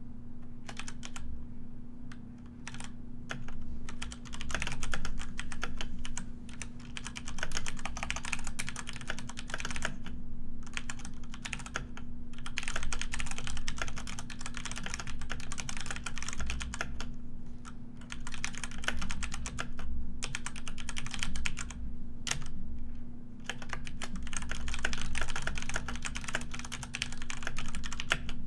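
Computer keyboard typing: a fast, continuous run of key clicks, broken by brief pauses every few seconds, over a faint steady low hum.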